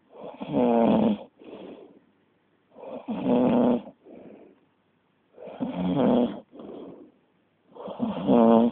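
Loud snoring: four deep, pitched snores on the breath in, about two and a half seconds apart, each followed by a softer breath out.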